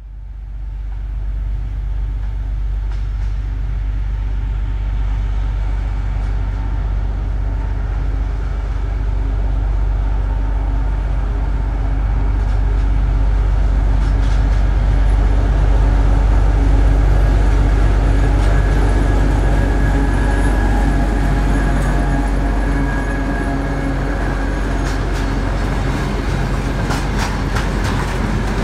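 M62 diesel locomotive's two-stroke V12 engine running steadily under load as it approaches and passes slowly with a freight train, fading in at the start and loudest about halfway through. Near the end, freight wagon wheels click over the rail joints.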